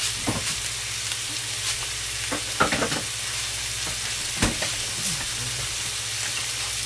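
Food frying with a steady sizzle, likely onions and mushrooms sauteing in ghee, with a few short utensil knocks against the pan, the loudest about two and a half and four and a half seconds in.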